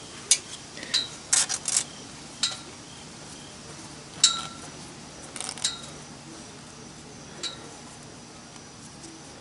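A steel piston ring clinking against the cylinder wall as it is pushed down into the bore to check its fit and end gap. The clicks are light and metallic, each with a brief ringing tone, and come in a loose string; the loudest is about four seconds in, with a cluster of quick clicks near the start.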